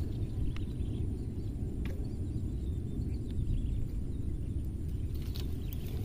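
Wind buffeting the microphone, a steady low rumble, with faint bird chirps and a few light clicks over it.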